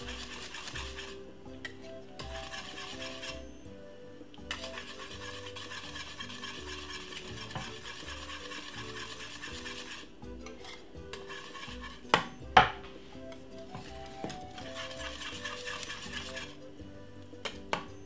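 Wire balloon whisk stirring thick peanut porridge in an aluminium saucepan as sweetened condensed milk is stirred in: a steady, quick scraping with a few short pauses. Two sharp knocks about two-thirds of the way in.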